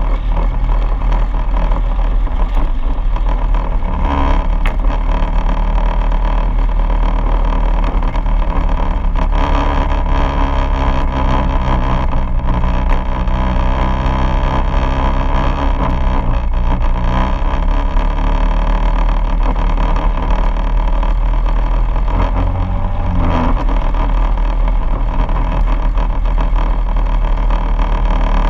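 Quad bike engine running as the bike is ridden over a gravel track, its note shifting up and down a few times with the throttle, over a steady low rumble.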